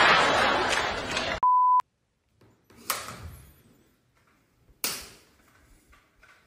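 Sitcom audience laughter that cuts off about a second and a half in, then a short steady beep, then two sharp thuds about two seconds apart.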